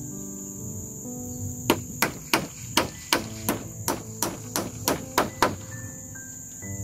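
Hammer blows, about a dozen in a quick run of roughly three a second, starting just under two seconds in and stopping a little over a second before the end.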